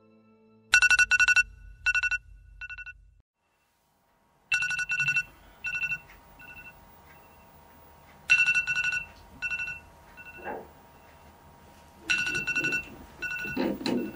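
An electronic alarm ringtone sounding in trilling bursts that repeat about every four seconds. It cuts out completely for about a second, three seconds in, and some lower, muffled sounds come near the end.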